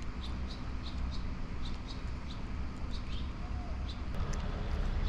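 A small bird chirping over and over, short high chirps about twice a second, over a steady low rumble.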